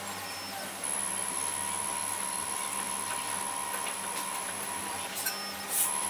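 Xhorse Dolphin XP-005 automatic key cutting machine's motors whining steadily as the carriage moves the clamped original key against the probe to decode its cuts (key learning). The whine steps up about a second in, and there is a short click near the end.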